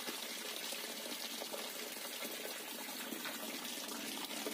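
Tap water pouring in a steady stream into a plastic tub of wheat grain, splashing onto the water already in the tub as it fills to wash the wheat.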